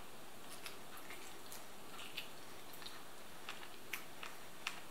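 Faint eating sounds: a few light, scattered clicks over low, steady room noise.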